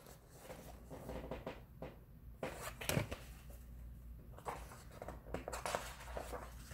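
Pages of a picture book being handled and turned: soft, scattered paper rustles, with one sharper tap about three seconds in.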